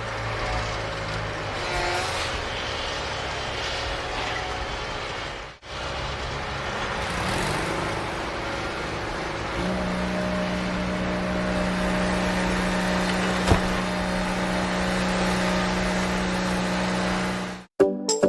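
Steady mechanical running noise, like a small machine or motor. It breaks off for a moment about five and a half seconds in. From about ten seconds a steady low hum sits on top, and the whole sound cuts off suddenly near the end.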